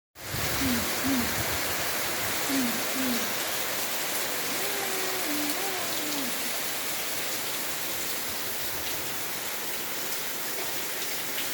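Steady rain falling, an even hiss throughout. Over it come low hooting calls in the first few seconds: two pairs of short notes, then a longer wavering call.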